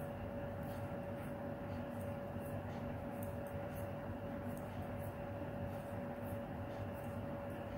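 Faint, irregular clicking of knitting needles working a row of purl stitches in yarn, over a steady hum.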